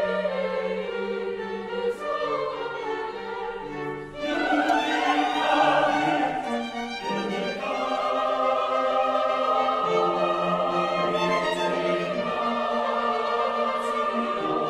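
Mixed choir singing with a chamber orchestra of strings in a sacred choral work. The sound grows fuller about four seconds in, then settles into long held chords from about eight seconds on.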